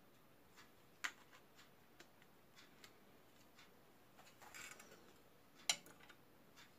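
Faint scattered clicks and a short rustle from hands handling a scale model airliner and its parts. There is a sharp click about a second in and another, the loudest, near the end.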